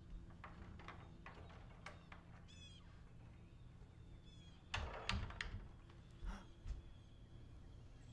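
A door being worked by hand: light clicks from the knob, a short high squeak, then a heavier thunk just under five seconds in and a few softer knocks.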